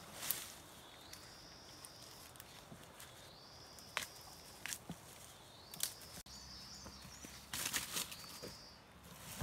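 Footsteps and handling in dry bamboo leaf litter: scattered crackles and snaps of dry leaves and twigs, busiest near the end. Behind them, a high, rising trill repeats every two to three seconds.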